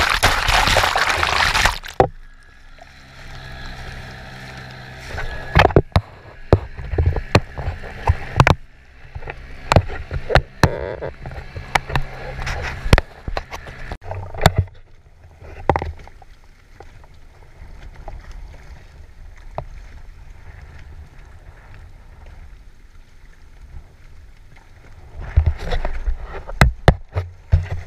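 Water against a small open boat in a choppy sea. A wave's spray drenches the camera for the first two seconds, then water sloshes and laps along the hull with scattered sharp knocks and splashes. It gets busier again near the end.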